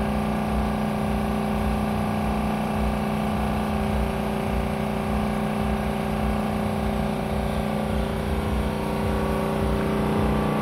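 A motor or engine running steadily with an even hum.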